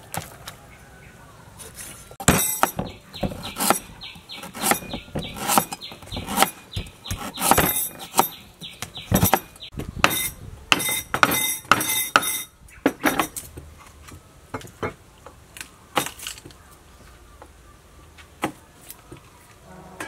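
Cleaver chopping raw pork on a wooden chopping block: a fast run of sharp chops, about two to three a second, starting about two seconds in and easing off after about twelve seconds into a few single strikes.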